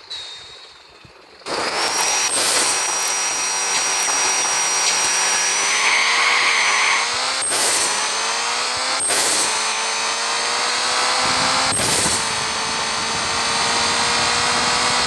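Turbocharged street drag car's engine under hard acceleration, starting suddenly and its note climbing slowly, broken by four sharp cracks spaced a few seconds apart.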